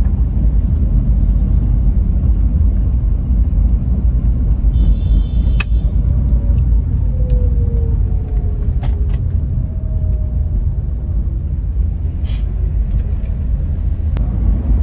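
Steady low rumble of a car's engine and road noise heard from inside the cabin while riding, with a few sharp clicks along the way.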